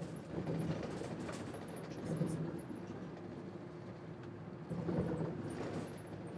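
Inside a moving city bus: steady engine and road noise, the engine swelling a few times, with faint knocks and rattles.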